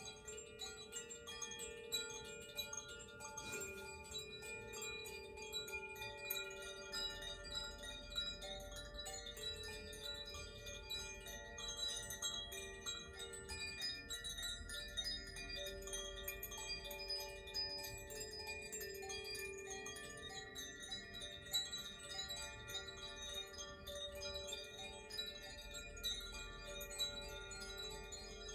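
Hand-played hanging tuned chimes, Koshi and Zaphir chimes, struck lightly and often. Many clear tones ring on and overlap without a break.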